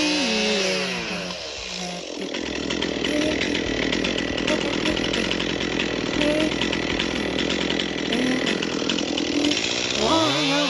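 A chainsaw running and cutting through wood for about eight seconds. Background music fades out during the first two seconds and comes back near the end.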